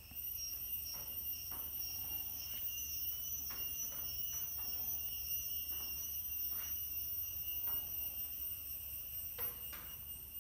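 Steady high-pitched insect chirring, held on one pitch throughout, with a few faint scattered clicks and a low hum underneath.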